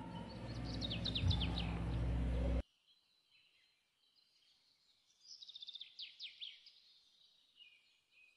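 Small birds chirping: a run of quick falling chirps about a second in and another cluster about five to six seconds in. The first run is over a low rumble and hiss that cuts off abruptly at about two and a half seconds.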